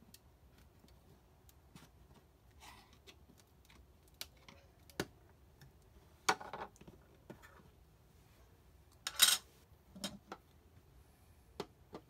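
Scattered small clicks, taps and scrapes of a screwdriver and plastic fittings being worked at a wall-mounted mains socket panel. There are two louder, brief scraping rattles, about six seconds in and about nine seconds in.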